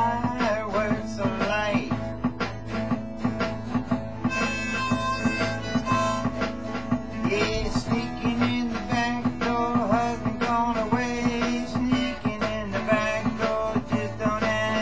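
Harmonica playing a blues break over a strummed twelve-string acoustic guitar and a programmed backing beat.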